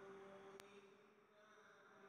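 Near silence: a faint steady hum, with one sharp click about half a second in.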